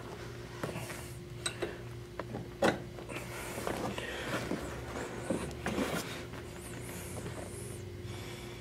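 Hands fitting a bolt into the foot-ottoman mounting bracket of an Osaki OS-4000LS massage chair: scattered clicks and knocks of the parts, with rubbing and rustling of the upholstery. The loudest knock comes a little before three seconds in, and a small cluster of clicks comes near six seconds, over a steady low hum.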